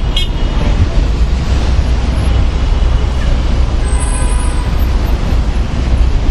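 Busy city street traffic: a steady low rumble of passing vehicles. A short higher-pitched tone sounds about four seconds in.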